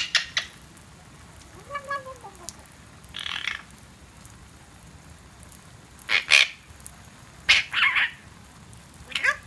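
Eclectus parrot making short chattering calls and mutters, about six in all, some squeaky with gliding pitch and one buzzy, the loudest about six and seven and a half seconds in. A steady hiss of falling water from its shower runs underneath.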